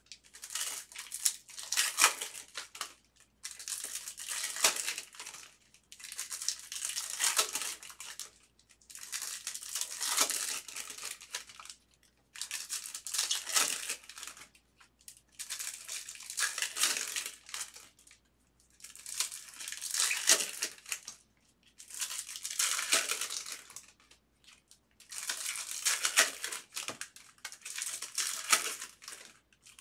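Bowman baseball card pack wrappers crinkling and tearing open, with cards being handled, in repeated bursts every second or two.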